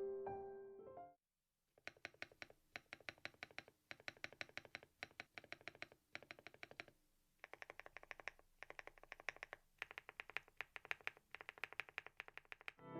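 Fast typing on a Thinkway TAUCHE.S 501 full-aluminium mechanical keyboard: quick runs of key clicks with a short pause in the middle. Piano music fades out in the first second.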